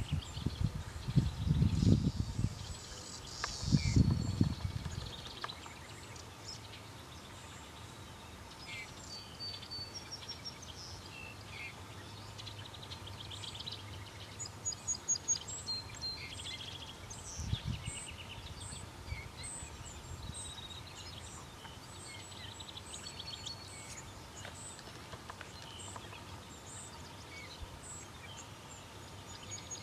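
Small birds chirping and trilling, many short high calls scattered throughout, over a faint steady outdoor hiss. Low rumbling bursts in the first five seconds and once around the middle.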